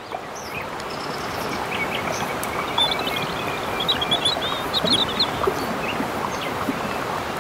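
Rushing river water, a steady hiss that swells in over the first couple of seconds, with small birds chirping over it in quick twittering runs through the middle.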